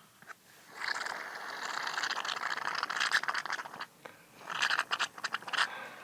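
Aerosol can of shaving cream spraying foam: one steady spray of about three seconds, then a second, shorter, more broken-up spray.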